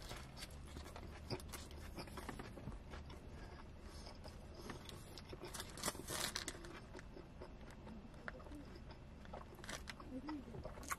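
Close-miked chewing of a bite of beef shawarma wrap with lettuce and pickles: wet mouth clicks and soft crunching, busiest about six seconds in.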